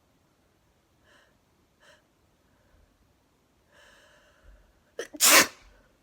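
Short catching breaths and a longer drawn-in breath building up to a sneeze, then one loud sneeze about five seconds in.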